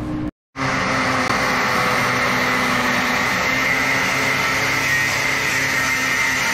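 Angle grinder with a cut-off disc cutting through the end of a brace's tubing, running steadily under load with a constant high whine. It starts after a brief break just after the start.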